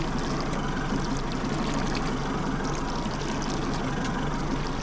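Boat engine idling steadily, with water lapping against the hull.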